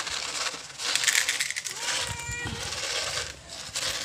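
Dry cat food rattling as it is poured from a plastic container into a plastic bowl, with a cat meowing about two seconds in.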